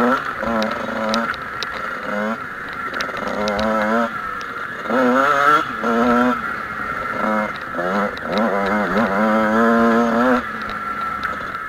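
Kawasaki KX two-stroke motocross bike engine revving up and falling back again and again as the throttle is worked, settling briefly at lower revs between pulls, with scattered short ticks.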